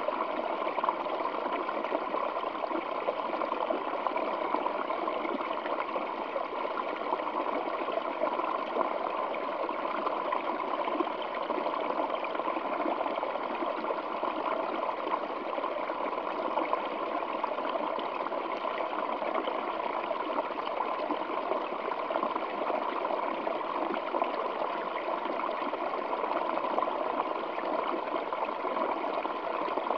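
Small waterfall running over rocks: a steady, unbroken rush of falling and splashing water with no breaks.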